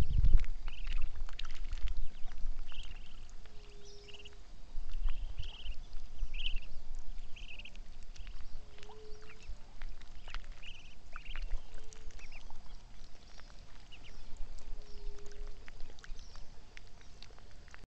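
Ducks calling on a lagoon: short high calls every second or so, thinning out later, with a lower held note about every three to four seconds. A low rumble near the start.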